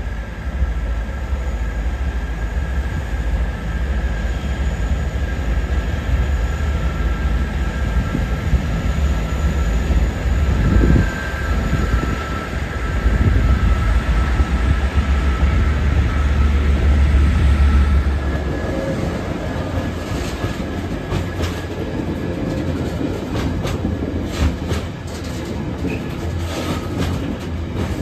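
Diesel train running past with a steady deep engine drone, fading after about two-thirds of the way through; then a freight train's box wagons roll by, their wheels clicking in quick runs over rail joints.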